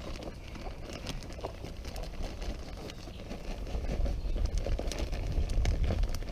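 Plastic bag of Morchella importuna sawdust spawn rustling and crinkling as the crumbly spawn is poured and shaken out of it, with scattered small crackles and patters as it lands on the soil. A low rumble grows louder about four seconds in.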